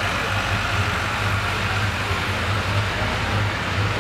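Farmall H tractor's four-cylinder engine idling steadily at the starting line, a low, even hum that does not change.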